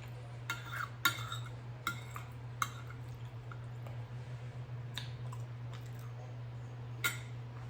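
Close-up mouth sounds of a person chewing a bite of salmon and rice: scattered wet clicks and smacks, several in the first three seconds and a couple more near the end, over a steady low hum.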